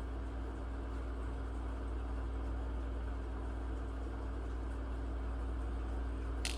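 Steady low hum over a constant background hiss, with a single sharp click just before the end.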